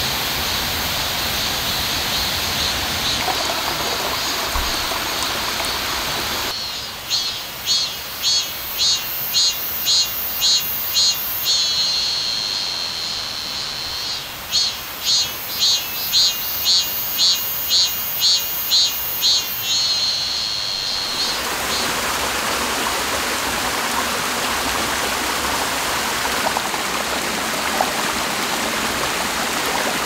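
A mountain stream rushing over rocks, giving way after about six seconds to a cicada calling in runs of quick high-pitched pulses, about two a second, each run ending in a steady buzz; the call comes twice before the stream sound returns for the last third.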